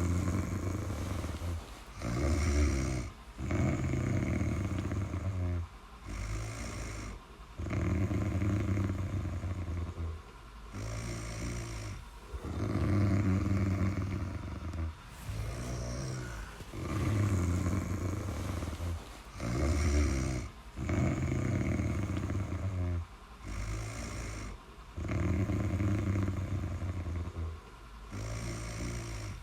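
Snoring in a steady breathing rhythm: a long, loud, low rattling snore alternating with a shorter, softer one, the cycle repeating about every four and a half seconds.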